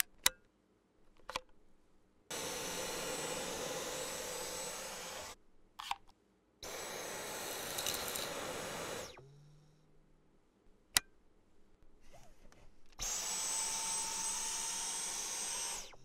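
Dyson V11 Animal cordless vacuum running in three bursts of about three seconds each, a steady rush of suction air; the last burst carries a high whine. A few sharp clicks come between the bursts.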